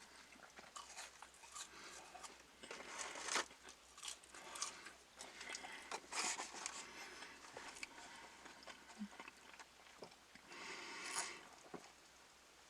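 A person chewing fast food close to the microphone: soft wet chewing and crunching with lip smacks, in irregular bursts.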